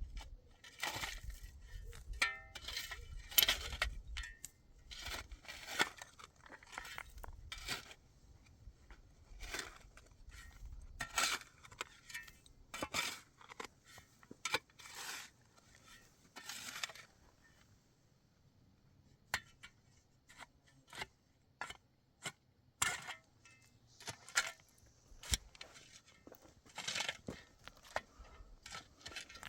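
Irregular clinks, scrapes and knocks of objects being handled, in short clusters with gaps, falling quiet for a couple of seconds past the middle.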